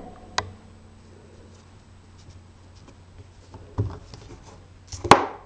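Light handling taps and clicks of a clear foliage stamp and card stock being positioned on a Stampin' Up! Stamparatus stamping platform, with a knock nearly four seconds in and one sharp, loud click near the end.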